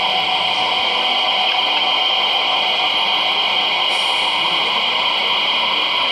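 Loksound 4.0 sound decoder in an LS Models BR 101 electric locomotive model, playing its standstill sound through the model's small speaker: a steady, even hiss.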